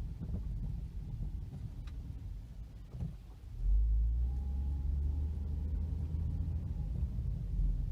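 Car driving: a low road rumble that gets louder about three and a half seconds in, with a faint steady whine through the middle.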